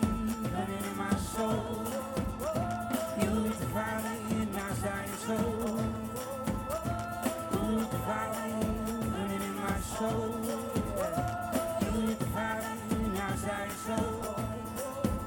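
A live song: a man singing lead over a strummed acoustic guitar.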